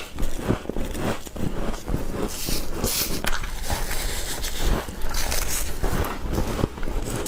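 Frost being bitten and chewed: a quick, irregular run of short crisp crunches and scrapes.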